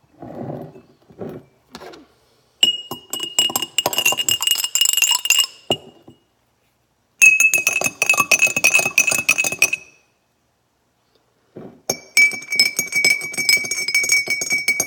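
A metal spoon tapped rapidly against three glass jars in turn, each holding a different amount of water. There are three runs of quick clinks, each with one steady ringing tone. The tone drops a step from one jar to the next, and the jar with more water rings lower.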